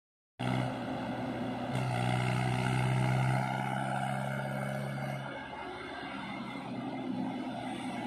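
Mahindra tractor's diesel engine droning steadily as it comes along the road with a loaded trolley, after a brief silent gap at the start; the drone drops away about five seconds in.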